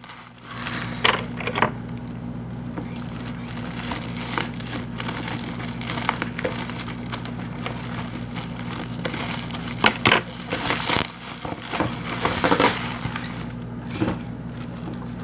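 Parcel packaging being worked open by hand: cardboard and plastic crinkling and crunching, with scattered sharp snaps and crackles, over a steady low hum.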